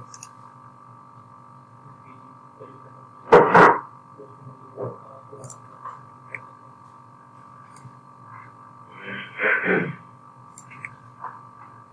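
Two short human vocal noises over a steady electrical hum: a sharp, loud one about three seconds in, and a longer, lower one near the end.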